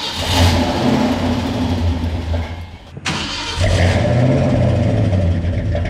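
The 289 V8 of a 1965 Ford Fairlane being cranked on a cold start with its choke held open, turning over and trying to catch. The sound breaks off sharply about three seconds in and resumes. This first try doesn't keep the engine running.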